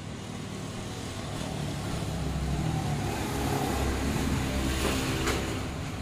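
A motor vehicle's engine rumbling past, growing louder over a few seconds and easing off near the end, with a couple of sharp clicks about five seconds in.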